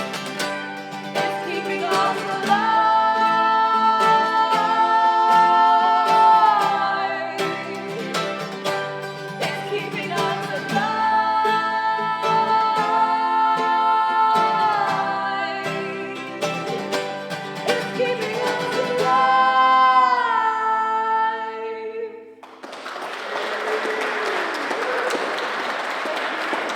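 Live acoustic guitars with two voices singing held harmonies that slide down at the ends of phrases, closing a song; the music stops about 22 seconds in and the audience applauds.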